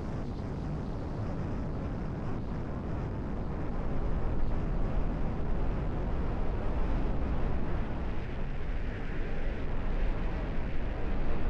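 Strong wind buffeting the microphone: a low, gusting rumble that grows louder about four seconds in.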